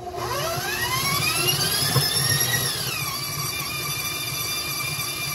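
Electric tilt-head stand mixer starting up to cream butter and sugar. Its motor whine climbs in pitch for about two and a half seconds, then drops to a lower, steady whine about three seconds in.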